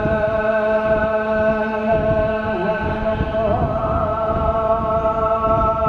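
Quran recitation: a man's voice chanting in long, held melodic notes, shifting pitch slightly about halfway through.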